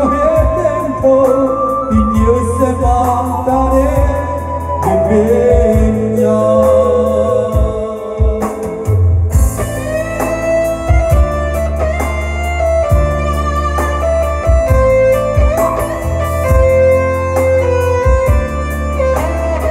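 Live band music: an instrumental interlude on a Yamaha keyboard, a melody line over a steady bass and drum beat.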